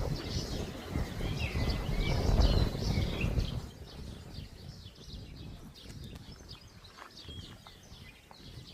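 Small songbirds chirping and twittering, with a few slurred whistles. Wind buffets the microphone with a low rumble for the first three and a half seconds or so, then eases off, leaving the birdsong clearer.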